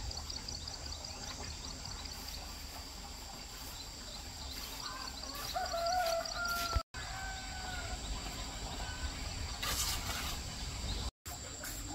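Rural outdoor ambience: insects buzzing steadily at a high pitch, with a low rumble underneath. A drawn-out bird call with two slightly falling tones comes about halfway through. The sound cuts out completely twice, briefly, like edits.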